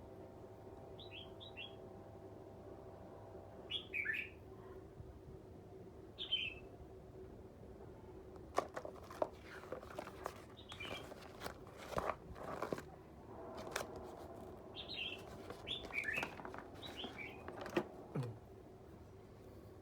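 Bird chirping in short clusters of quick, falling notes every few seconds, with a run of sharp clicks and knocks in the middle and a steady low hum throughout.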